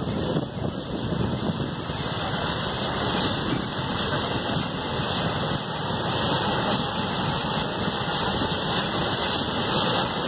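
Water jetting from a burst water supply pipeline: a steady rushing spray, with the falling water pattering down like heavy rain.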